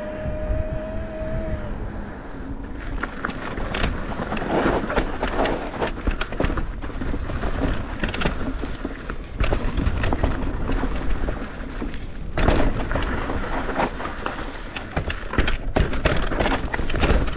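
Mountain bike riding down a dirt singletrack: a continuous rush of tyre noise over dirt and dry leaves, full of quick knocks and rattles from the bike hitting roots and rocks. It opens with a brief steady whine.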